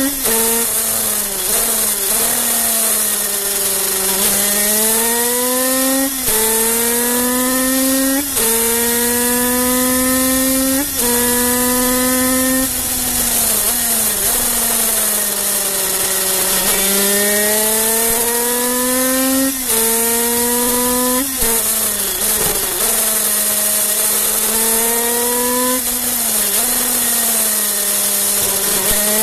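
Kreidler 50cc single-cylinder two-stroke racing engine revving hard through the gears: its high, buzzing note climbs steadily and drops sharply at each upshift, then falls away as the rider backs off for the corners, twice, before climbing again. Wind rushes over the microphone throughout.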